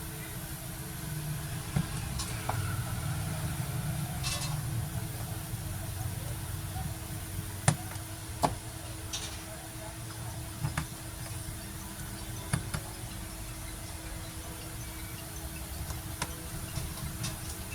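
Occasional light clicks and ticks of a small screwdriver working the screws of a Mi Note 9 Pro's internal frame as they are tightened, over a steady low hum.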